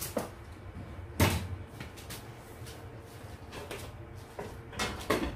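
A metal spoon stirring batter in a stainless steel mixing bowl, knocking and clattering against the bowl a few times, with the loudest knock about a second in and a couple more near the end.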